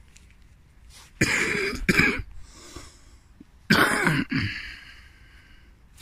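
A man coughing: two pairs of harsh coughs, about a second in and again near four seconds.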